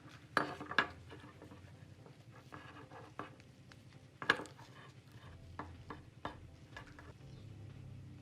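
Light clicks and clinks of small hard parts and tools being handled, with a few sharper knocks about half a second in, just before a second in, and again near the middle.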